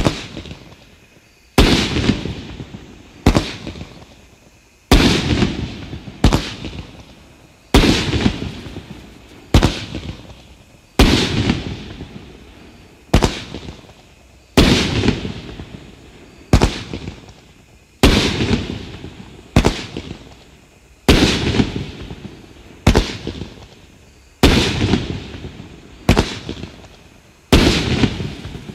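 Black Cat Fat Cat 15-shot, 500-gram consumer firework cake firing shot after shot: a sharp bang about every second and a half, each trailing off over a second or so.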